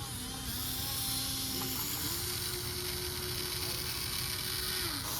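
Whine of a radio-controlled excavator's small electric motor running steadily over a hiss. Its pitch steps up about two seconds in and drops away near the end.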